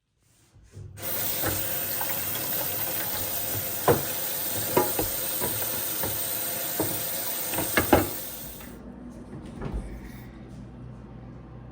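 Tap water running into a sink, with several knocks and clinks in it. The water stops about nine seconds in, leaving a low hum.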